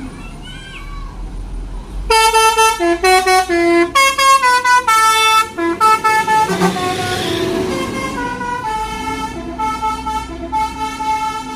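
A departing Mercedes-Benz coach sounds its multi-tone musical air horn. From about two seconds in it plays a quick run of stepped notes, with a burst of hiss partway through, then holds a steadier chord that shifts slightly near the end.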